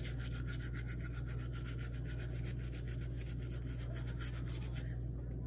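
Manual toothbrush scrubbing teeth in rapid back-and-forth strokes, stopping about five seconds in, over a steady low hum.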